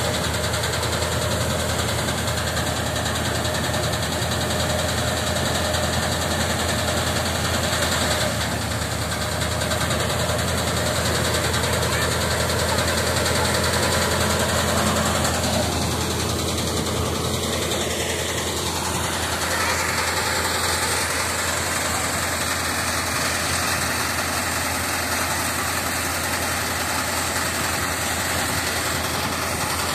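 Paddy thresher running steadily under load: a continuous loud mechanical din of the threshing drum and blower as rice bundles are fed in, with a steady low hum underneath.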